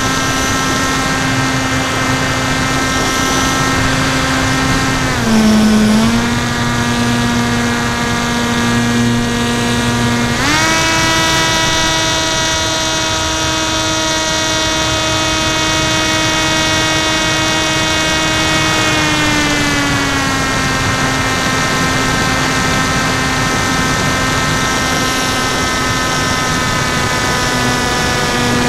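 Brushless NTM 2836 1200kv outrunner motor spinning a 10x5 APC propeller on a flying wing in flight: a steady propeller whine that dips briefly about five seconds in, jumps up in pitch at about ten seconds as the throttle is opened, holds, then slides back down around twenty seconds as the throttle is eased off. A steady rush of air runs underneath.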